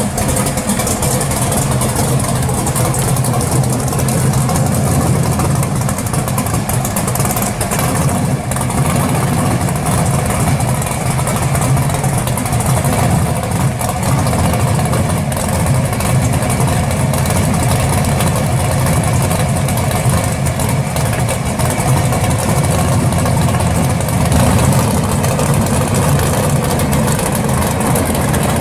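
First-generation Chevrolet Camaro drag car's V8 idling steadily while the car creeps along at low speed, with no hard revving.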